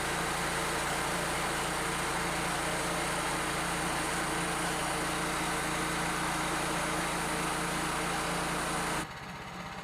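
An engine running steadily at one speed. About nine seconds in it cuts abruptly to a quieter, different-sounding engine running.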